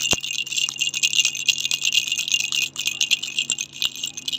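Green plastic baby rattle being shaken, a fast, continuous jingling rattle.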